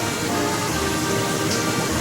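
Background music with short held notes over a steady rushing, water-like noise.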